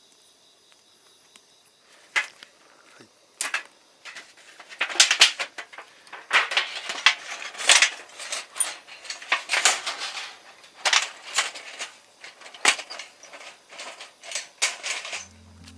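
Eating utensils clicking and scraping against a bowl of rice and grilled meat, in irregular short strokes that come thickest in the middle.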